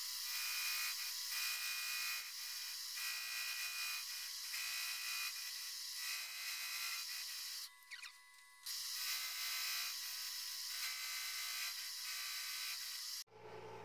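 Metal lathe running and taking a turning cut, the carbide tool hissing steadily as it cuts metal over the hum of the machine. The sound drops out briefly about eight seconds in, resumes, and cuts off abruptly near the end.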